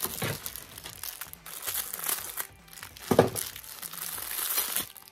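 Clear plastic packaging bag crinkling and rustling as hands unwrap a small phone holder from it, loudest about three seconds in.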